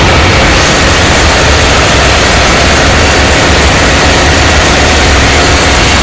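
Ship's engine-room machinery running: loud, steady noise with a deep hum under a wide hiss.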